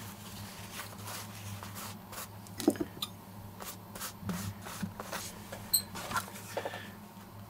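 Paper towel rustling as it is laid on a carbon-fibre wing panel and pressed flat by hand, with scattered light taps and rubs. A faint steady low hum runs underneath.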